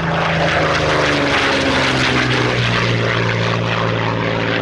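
Propeller-driven piston aircraft engine running as a steady drone, its pitch falling slightly partway through.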